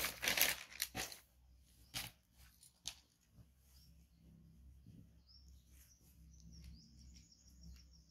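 Fabric rustling and handling in the first second, a couple of sharp clicks, then a faint high chirping in the background.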